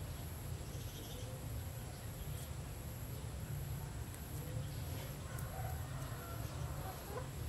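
Quiet background ambience: a constant low rumble and a steady high-pitched drone, with faint, short chirps scattered through it.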